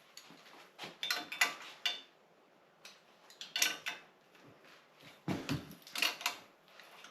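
Bicycle headset and front fork being worked out of the frame: metal parts clinking and rattling in three short bouts.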